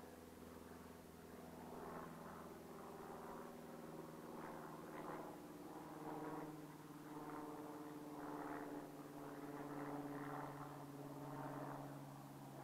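A distant engine running steadily, its low drone drifting slightly in pitch, with a faint hiss that swells and fades about once a second.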